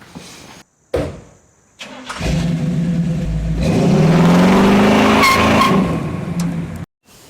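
The 1990 Chevy K1500's small-block V8 revving, its pitch rising through the middle and then holding before it cuts off abruptly.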